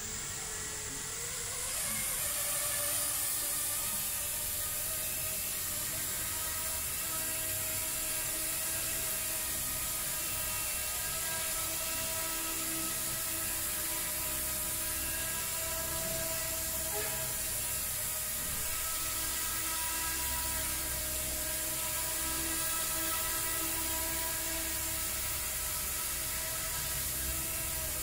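Small R/C helicopter with a multi-blade rotor head running: a whine of motor and gears with the whir of the rotor. The pitch rises over the first couple of seconds as the rotor spins up, then holds steady.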